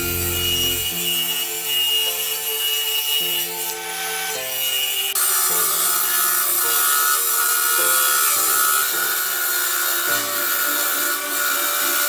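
A steady rasping noise of a tool working wood, getting louder about five seconds in, under background instrumental music.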